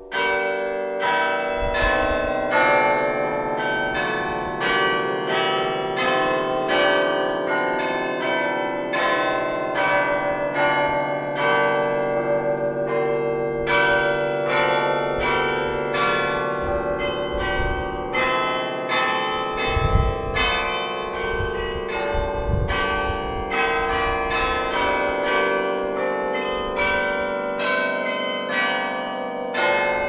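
Carillon bells played as a tune by a carillonneur: bells struck in quick succession, about two or three notes a second, each ringing on under the next.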